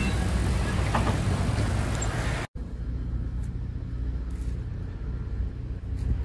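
Low, steady vehicle rumble. It breaks off in a sudden cut a little under halfway through, and a quieter low hum carries on after it.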